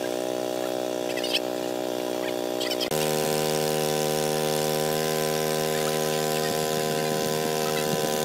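Small engine-driven water pump running steadily with an even, fixed-pitch hum; its pitch and loudness jump slightly about three seconds in.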